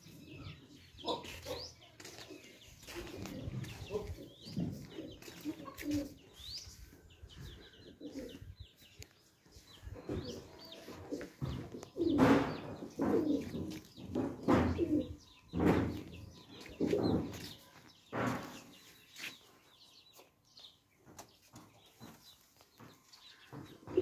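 Pigeons flapping their wings, in a run of loud bursts about halfway through, with pigeons cooing and small birds chirping.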